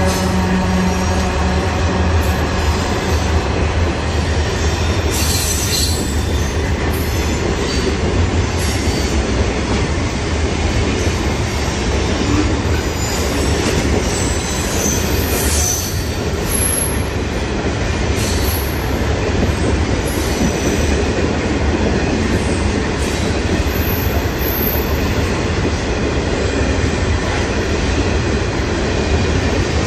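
Freight train's grain hopper wagons rolling past, a steady rumble of wheels on rail with high wheel squeals now and then. A diesel locomotive's engine note fades out about a second in.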